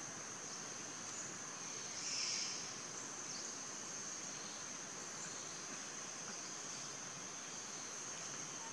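Steady high-pitched drone of insects in the forest, with a brief louder call about two seconds in.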